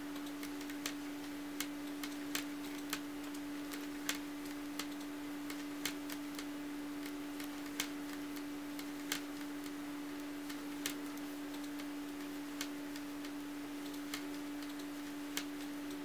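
Metal knitting needles clicking against each other as plain stitches are knit, light irregular clicks about once a second over a steady low hum.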